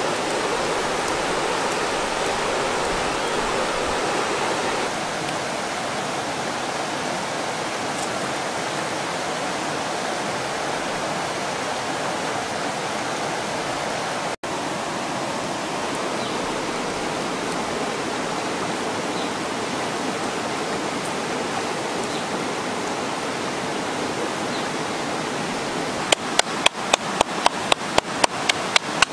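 Steady rush of a fast-flowing river running over rocks. Near the end, rapid sharp knocks, about four a second, from something being pounded in a bowl with a wooden pestle.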